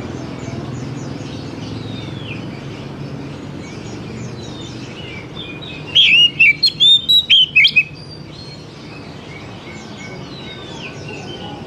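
Oriental magpie-robin singing one short, loud phrase of about eight sharp, bending notes about six seconds in. Fainter chirping from other birds and a low steady background noise run under it.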